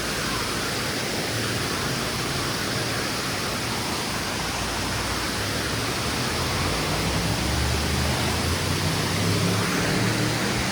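Waterfall: a steady rush of falling water, with a low rumble joining in during the second half.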